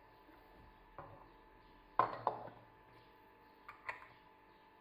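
Clinks and knocks of kitchenware as juice is bottled: a metal ladle, a plastic funnel and a glass bottle being handled, with the loudest pair of knocks about two seconds in. Two sharper clicks follow shortly before the end as a cap is pressed onto the glass bottle.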